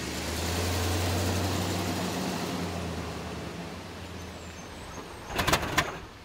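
An SUV's engine and tyres passing close by and pulling away up the road, the hum fading as it goes. About five seconds in, a quick run of sharp clunks as its wheels cross the rails.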